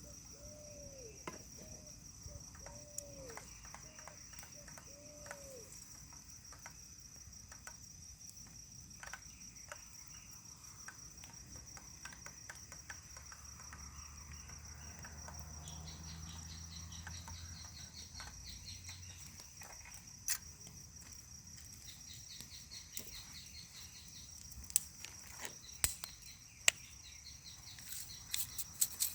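Insects trilling, a steady high-pitched chirring that goes on without a break, with scattered sharp clicks that grow louder near the end. A few short rising-and-falling calls come in the first few seconds, and a faint low hum runs for a few seconds mid-way.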